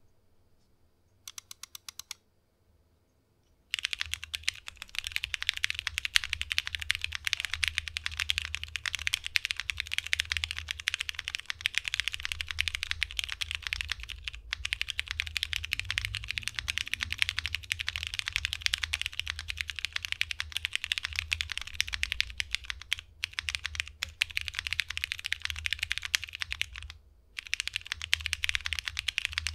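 Fast, continuous typing on a 60% mechanical keyboard with diamond-polished Cherry MX Brown tactile switches on a polycarbonate plate, with PBT keycaps. A short quick run of clicks comes about a second in, then a pause. Steady typing starts at about four seconds, with a few brief breaks.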